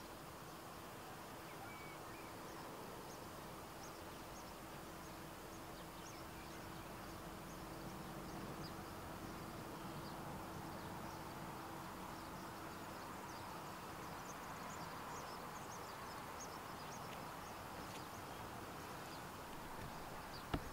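Faint rural outdoor ambience: a low steady background hiss with many brief high chirps of distant birds scattered throughout, and a faint steady hum that stops about two-thirds of the way through.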